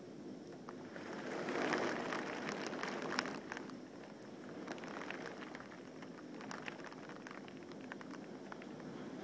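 Rain falling and drops ticking against window glass, swelling louder for a couple of seconds about a second in, then easing back to a steady patter.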